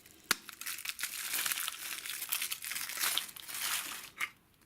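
A surprise egg's wrapper crinkling and rustling as it is unwrapped by hand, after a single sharp click about a third of a second in.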